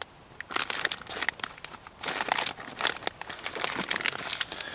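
Plastic-and-foil food pouch of a self-heating ration pack crinkling on and off as it is handled and opened.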